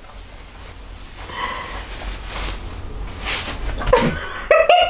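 Stifled laughter: breathy snorts and huffs through the nose, breaking into short open laughs near the end.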